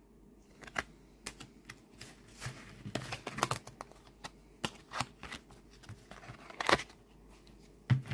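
A deck of tarot cards being gathered up and squared in the hands: irregular sharp clicks and light rustles as the card edges tap and slide against each other, starting about half a second in.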